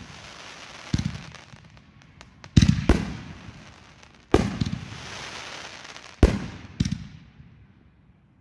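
Aerial fireworks bursting overhead: six sharp bangs, two of them coming as close pairs, each followed by a fading hiss and crackle of falling sparks.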